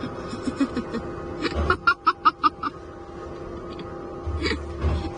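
A person laughing in a quick run of about six short bursts, with steady tones underneath.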